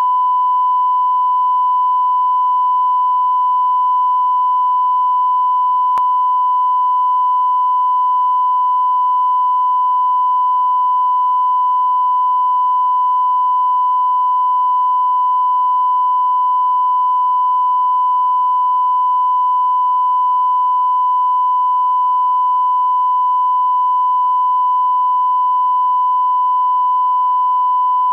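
Steady 1 kHz line-up reference tone played over colour bars at the head of a videotape, one unbroken pitch with faint hiss beneath it and a single faint click about six seconds in.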